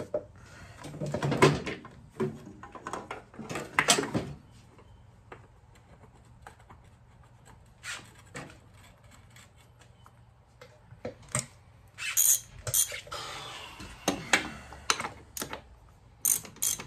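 Irregular clinks, knocks and clatters of hand tools and parts being handled, with a busier stretch of scraping and clicking near the end.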